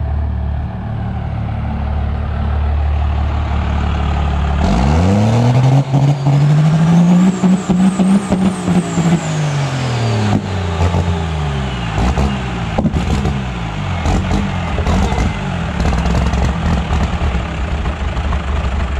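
P-pumped Cummins diesel engine idling, then revved hard once, rising with a turbo whistle to a peak and falling back over about seven seconds; after that it runs unevenly. Something gave out under the hard revving, which the owner suspects is the injection pump timing slipping.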